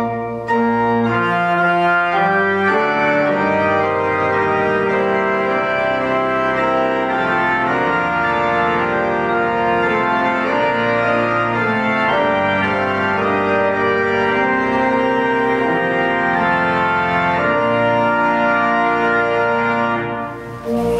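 Organ playing slow, sustained chords that change every second or two, with a brief dip just before the end.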